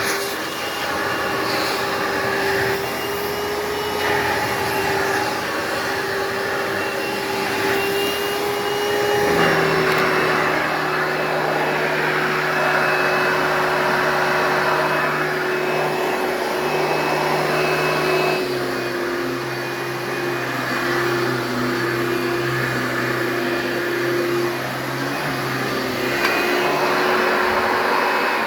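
Hoover Dimension Limited upright vacuum cleaner running steadily with a motor whine. About nine seconds in the whine drops slightly in pitch and a lower hum joins, which shifts again about two-thirds of the way through.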